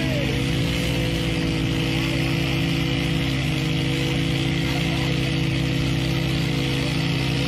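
A vehicle engine running steadily at an even pitch, a constant drone that holds without change.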